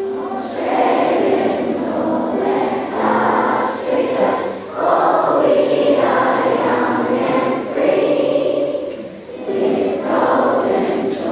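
Children singing the national anthem together in phrases, with instrumental accompaniment.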